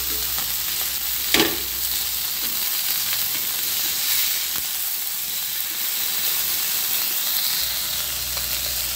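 Masala-marinated fish pieces shallow-frying in oil on a dosa tawa over a slow flame: a steady sizzle. About a second and a half in comes one sharp tap of the metal spatula.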